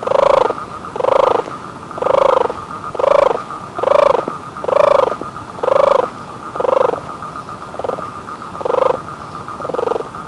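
An animal calling over and over, a short pitched call about once a second, over a steady high tone.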